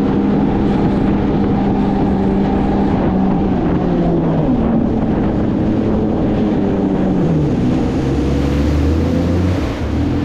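Personal watercraft engine running steadily, then throttled back in two steps about four and a half and seven and a half seconds in, settling to a low idle near the end.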